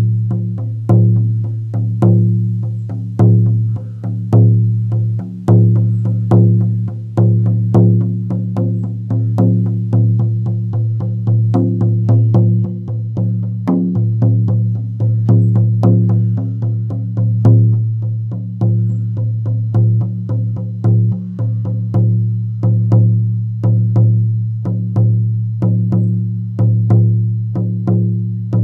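18-inch deerskin shamanic frame drum on an ash wood frame, struck with a firm beater in a steady stream of beats, each giving a deep ringing tone that carries on between strokes. Louder accented strokes come about every second, and the rhythm shifts a few times.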